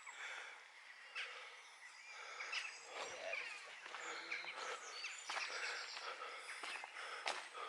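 Outdoor ambience with small birds chirping and twittering, including a quick trill about five seconds in, and a few footsteps.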